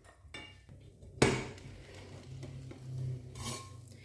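Frying pan being handled on a glass hob: a sharp knock about a second in and a lighter clink near three and a half seconds, with a low steady hum in between.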